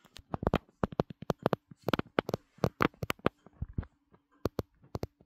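Rapid, irregular clicks and knocks, several a second, over a faint steady low hum.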